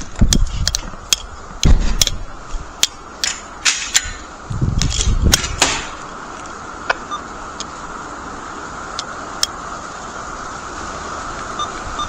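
Radio static on a weather radio broadcast: irregular sharp clicks and pops with low thumps for about the first six seconds, then a steady hiss.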